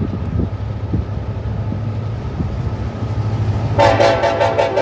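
Union Pacific diesel freight locomotive approaching with a steady low rumble, then sounding its horn: one loud chord lasting about a second near the end.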